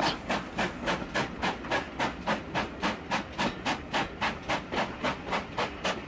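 Sharp craft knife scoring MDF board: a rhythmic scraping of short, even strokes, about five a second.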